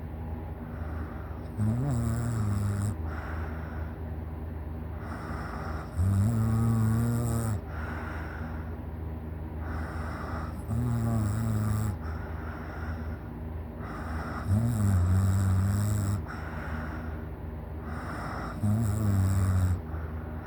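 A sleeping person snoring loudly: five deep, drawn-out snores about every four seconds, each a low steady tone lasting a second or so, with softer breaths between them.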